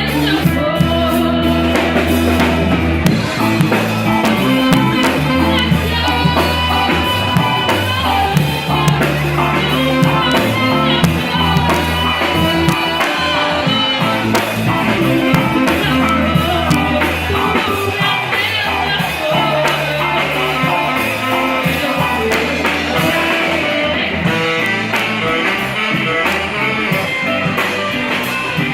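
A rock band playing live: singing over guitar and drums at a steady, loud level.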